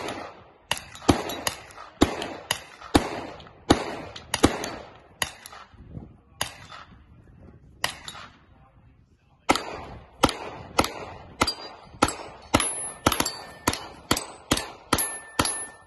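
Gunfire from several shooters on a three-gun match stage: a quick run of shots at first, only a couple of shots in the middle, then a fast string near the end. Steel targets ring over the last few seconds.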